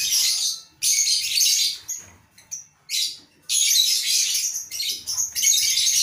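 A flock of lovebirds in a colony aviary chattering and screeching in harsh, high-pitched bursts, with a short lull about two seconds in.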